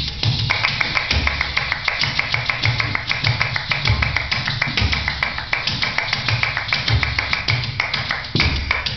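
Fast percussive dance music for kathak fusion, with rapid tapping strokes over a deep beat about once a second.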